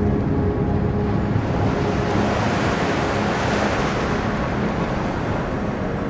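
Ocean surf washing over a rocky shore. A wave's hiss swells to a peak about halfway through, then eases back.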